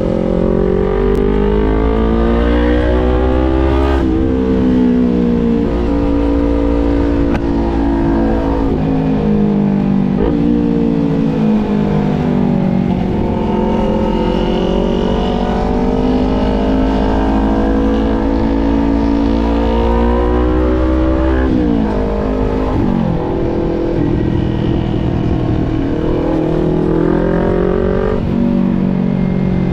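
Small 250 cc parallel-twin sport motorcycle engine under way, revs rising and falling as it rides through the gears, with quick drops in pitch at shifts about 4, 10, 21 and 28 seconds in.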